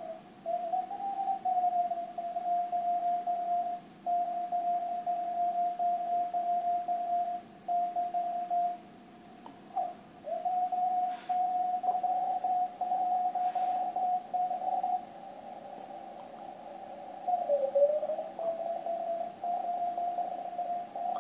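A Morse code (CW) signal on the 80-metre band, received through a Yaesu FTdx1200 transceiver: one steady beeping tone keyed on and off in dots and dashes. Its pitch slides briefly near the start, about halfway, and once more a few seconds before the end, as the tuning dial is turned.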